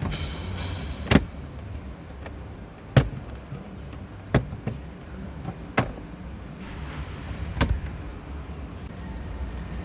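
About five sharp clicks and knocks spaced a second or two apart over a low steady hum, typical of hands and a tool working loose a plastic side trim cover on a steering wheel.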